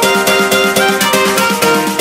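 Background music with a steady beat and short plucked notes.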